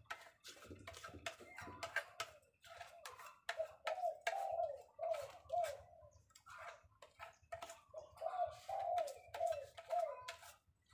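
A dove cooing in runs of short, arched notes repeated about twice a second, over the crackle and rustle of stiff cement-sack paper being handled and creased on a wooden block.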